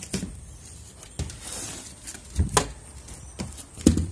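Several sharp wooden knocks and clunks as wooden hutch-door frames covered in wire mesh are handled and fitted together. A scraping rustle comes about a second and a half in, and the loudest knock comes near the end.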